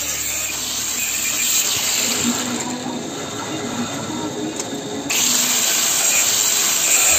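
Steady power-tool noise, then about five seconds in an angle grinder with a cut-off disc bites into steel hollow bar, sending the sound suddenly louder.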